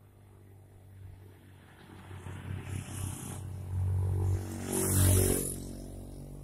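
Two small motor scooters climbing a steep grade and passing close by one after the other. Their engines grow steadily louder, peak about four and then five seconds in, and fade as they go on.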